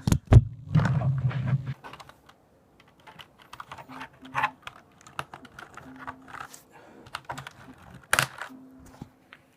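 Steelseries G6v2 mechanical keyboard (Cherry MX Black switches) being handled while a keycap is worked off: loud knocks at the start, then a run of small plastic clicks and taps, with one sharp click about eight seconds in.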